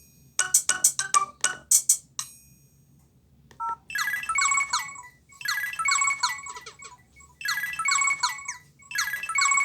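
Nokia MIDI ringtones played through the small speaker of an LG B470 phone. A percussive tune stops about two seconds in. After a short gap there is a brief two-note beep, then a new ringtone starts: a quick phrase of falling notes that repeats about every second and a half.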